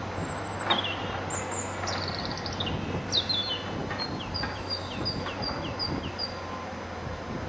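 A songbird singing a run of quick, high whistled notes, many falling in pitch and ending in an evenly spaced series of short notes, over the steady low hum of a tracked excavator's engine running in the distance.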